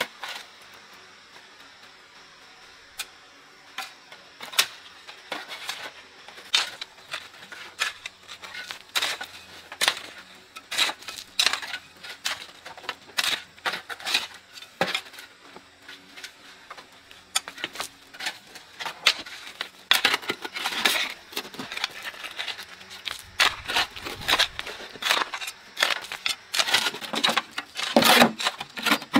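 Irregular clicks, taps and light knocks, a few at first and then coming thicker and louder in the second half.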